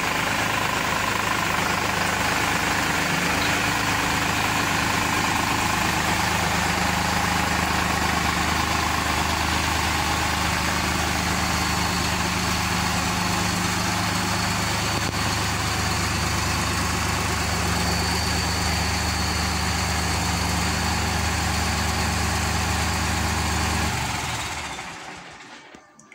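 T480B tractor's diesel engine running steadily at low revs while the tractor is driven slowly into place, then switched off near the end, its sound dying away over about a second and a half.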